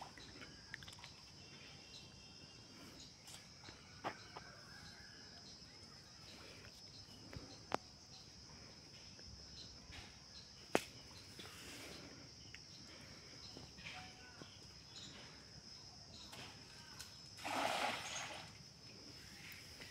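A cast net thrown from the bank lands flat on pond water with a brief splash, about a second long, near the end: the loudest sound here. Before it there are only a few faint sharp clicks over a steady high hum.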